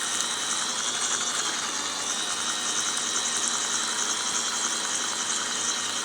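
Small electric motor of a mini toy washing machine running steadily, spinning its tub of soapy water with an even, high-pitched whine.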